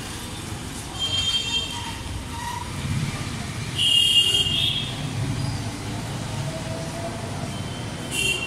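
Street traffic with a steady low hum of passing vehicles. A few short, high-pitched tones cut in over it, the loudest about four seconds in.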